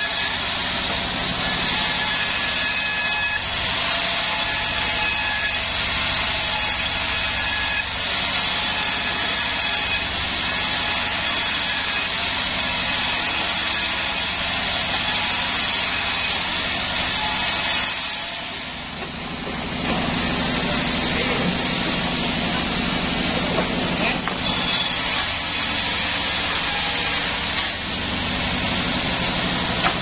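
Sawmill band saw running and ripping planks from wadang timber, a steady loud saw noise with a faint whine. The noise dips for about a second about two-thirds of the way through, then the cutting picks up again.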